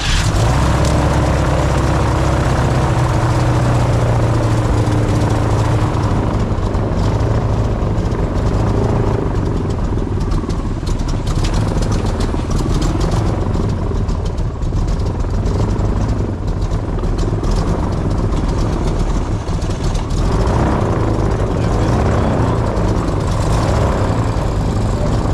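Airboat engine and propeller running loud and steady with a deep drone, jumping suddenly to full volume at the very start.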